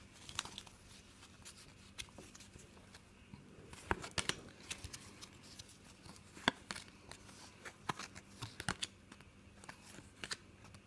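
Paper trading cards being leafed through by hand: faint irregular slides and flicks of card against card, with a dozen or so sharper snaps.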